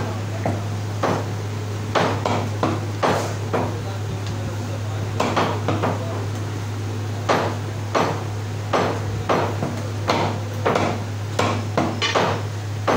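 A heavy meat cleaver chops through goat ribs into a wooden chopping block, cutting them into rib chops. The chops are sharp and come at an uneven pace, often in quick pairs, with short pauses between them. A steady low hum runs underneath.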